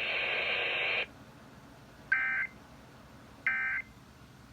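Emergency Alert System end-of-message signal: two short bursts of the SAME digital data tones, about 1.3 s apart, marking the end of the test broadcast. Before them, a hiss cuts off about a second in.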